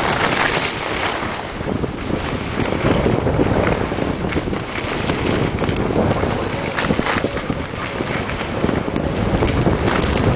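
Wind buffeting the microphone in a snowstorm: a rough rushing noise that rises and falls in gusts.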